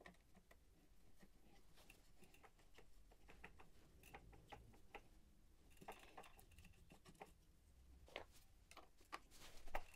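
Faint, scattered small clicks and taps of a Garmin Vector 3 pedal being handled and threaded by hand into a crank arm, more of them in the second half, over near silence.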